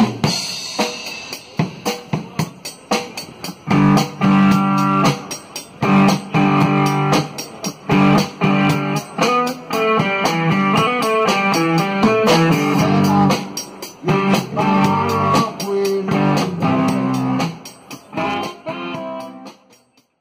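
A small jazz band playing: a Tama drum kit, saxophone and electric guitar. The drums keep time throughout, long held melody notes come in about four seconds in, and the music fades out near the end.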